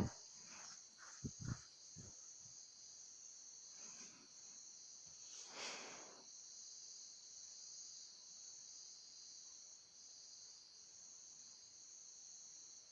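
Near silence, with a faint steady high-pitched hiss throughout and a few faint clicks a little over a second in.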